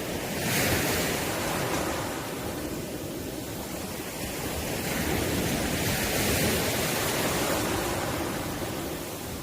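Ocean waves breaking and washing ashore. The surf swells in loudness about half a second in, eases, then builds again in the middle of the stretch.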